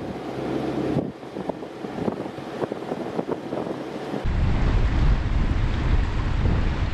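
Wind buffeting the microphone, crackling at first, then from about four seconds in a heavy low rumble.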